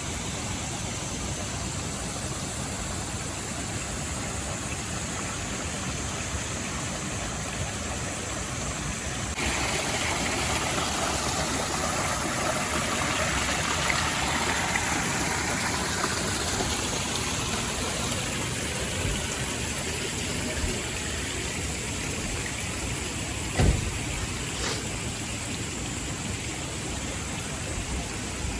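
Steady rush of a mountain stream's flowing water, turning suddenly louder and brighter about a third of the way in and then slowly easing. A single thump near the end.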